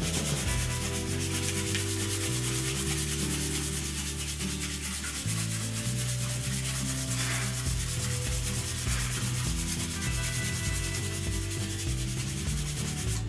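Sandpaper rubbed by hand over a cork fishing-rod grip, a continuous scratchy sanding as the repaired cork is smoothed.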